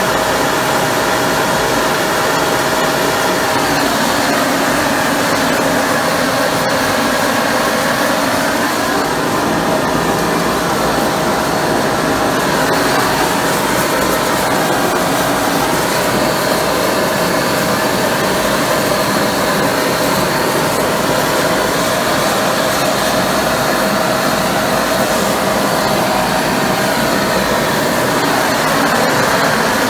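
Homemade torch-fired steam gun running flat out: a large propane torch burning under the water coil while superheated steam jets from the nozzle. It makes a steady, loud rushing noise with a faint steady whine through it.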